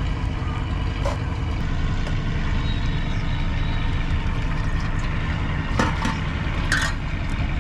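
A motor running steadily with a low drone, broken by a few short clicks and knocks about a second in and again near the end.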